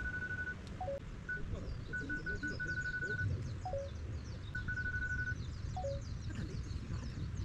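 Beeps at one high pitch, some in quick runs of short beeps and some held for about a second, with a lower two-note falling tone every couple of seconds. Faint quick high chirping runs beneath.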